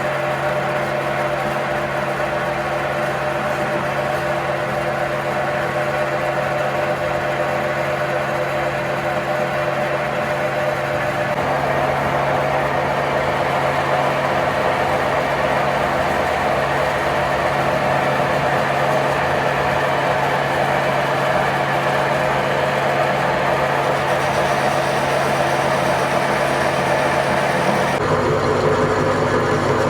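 A machine running steadily with a constant hum. Its sound thickens about a third of the way in and shifts to a lower pitch near the end.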